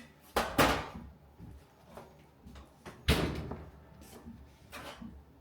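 Kitchen doors or drawers being opened and shut: two loud knocks, one about half a second in and one about three seconds in, and a fainter one near the end.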